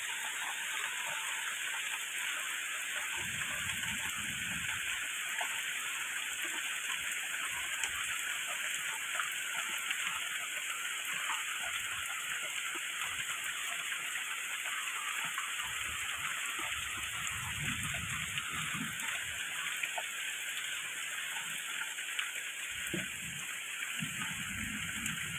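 Steady rain falling, an even hiss that does not let up. A low rumble comes and goes several times under it.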